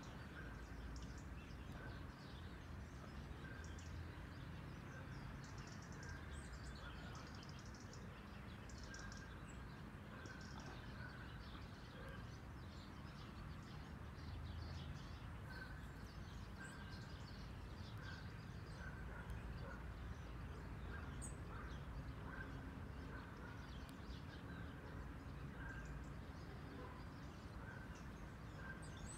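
Faint outdoor ambience: birds chirping on and off over a low steady rumble.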